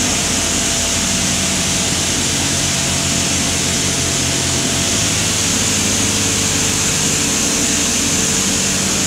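Steady machinery din on an offshore drilling rig's drill floor: a constant high hiss over a low hum with a few steady tones.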